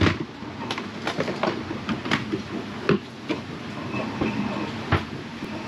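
Irregular clunks, rattles and creaks of a sailboat's galley working in a seaway, over a steady rush of water and wind. A sharp clunk right at the start as a plastic blender jar is set onto its base.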